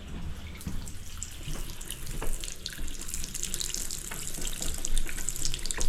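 Water running from a basin tap into the sink, splashing unevenly, with a few small knocks.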